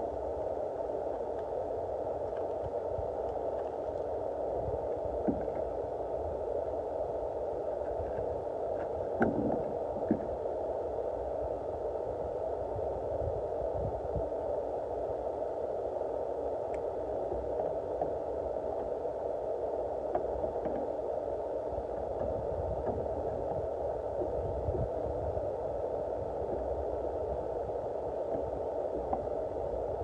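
Steady background noise with a low rumble, and a few light plastic clicks and knocks from the taillight assembly and its bulb sockets being handled. The sharpest clicks come about nine and ten seconds in.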